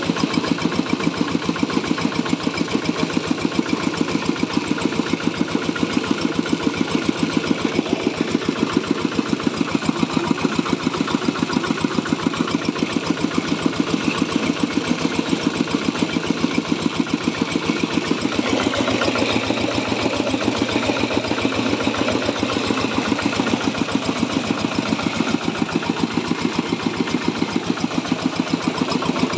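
Diesel engine driving a corn grinding mill, running steadily with a rapid, even beat.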